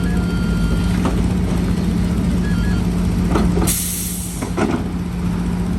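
Heavy diesel earthmoving machinery running with a steady drone, with a short, loud hiss of released air, like a truck's air brake, about two-thirds of the way through.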